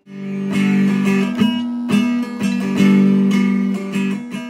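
Homemade wooden electric guitar with 3D-printed pickups, played through a loudspeaker: strings plucked in a repeating pattern of ringing notes that die away near the end.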